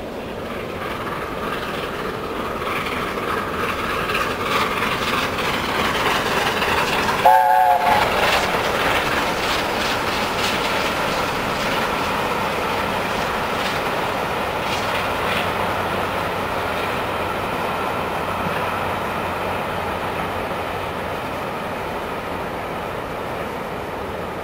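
LNER A4 Pacific steam locomotive 60019 Bittern passing at an easy pace with a train of coaches. Its exhaust and the rolling wheels grow louder as it approaches, then fade slowly as the coaches go by. About seven seconds in it gives a brief blast on its three-note chime whistle, and the weir's rushing water runs underneath throughout.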